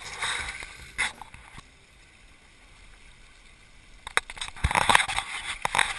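Mountain bike riding over a rocky trail: tyres crunching on loose rock and the bike rattling, with a sharp knock about a second in. After a quieter stretch, a burst of knocks and rattles follows from about four seconds in.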